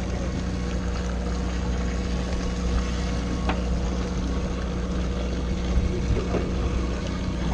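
Fishing boat's engine idling, a steady low drone.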